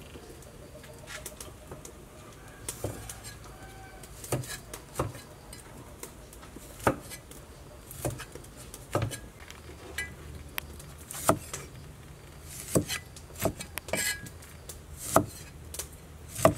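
Cleaver chopping limes on a round wooden chopping board: sharp knocks of the blade striking through the fruit into the board, uneven, roughly one a second, the loudest near the end.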